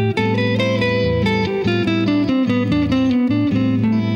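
Electric guitar picking a single-note line in A Aeolian, the C major scale played starting on A, over a steady A minor groove held underneath.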